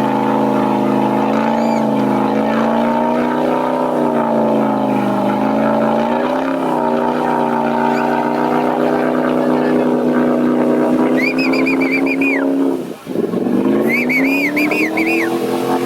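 Off-road 4x4 race vehicle engine held at high revs under load, its pitch wavering. About thirteen seconds in it drops sharply as the throttle comes off, then climbs again.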